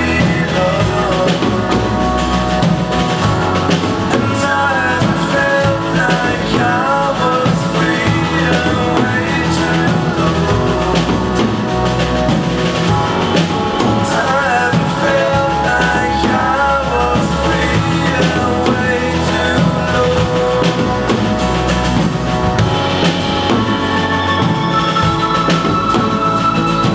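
Live band playing a song: a sung lead vocal over acoustic guitar, keyboard and drum kit, at a steady loud level.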